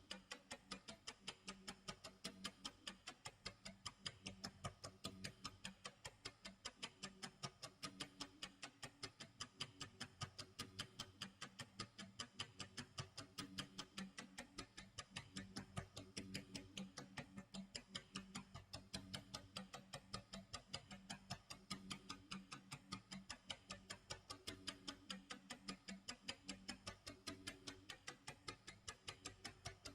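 Faint clock tick-tock sound effect: fast, even ticking that never changes pace.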